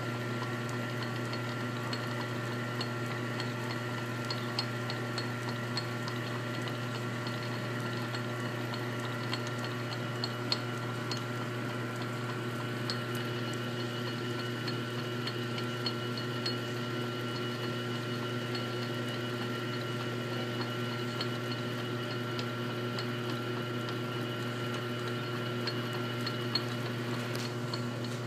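Metal lathe running steadily while a tap is fed under power into the spinning steel workpiece, cutting internal threads. A steady hum with a few constant tones, and light scattered ticks.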